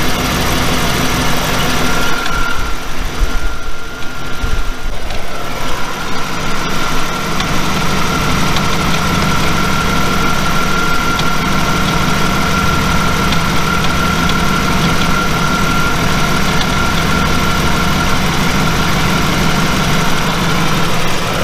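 1993 Chevrolet Camaro's LT1 small-block V8 idling steadily while warming up during a coolant air-bleed, with a steady high-pitched whine joining in about two seconds in.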